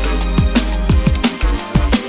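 Background electronic music: a fast, steady beat of kick drums and hi-hats over a deep bass, the bass dropping out briefly past the middle.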